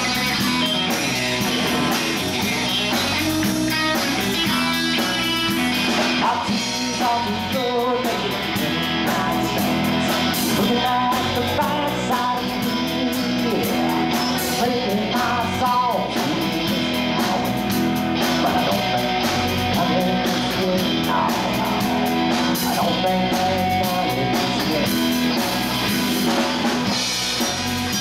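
Live rock band playing: electric guitar lead with bent notes over bass guitar and drum kit.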